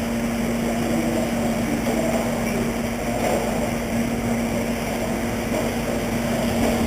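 Radio-controlled stock trucks racing on a track: a steady noise of the trucks running, with a constant low hum underneath.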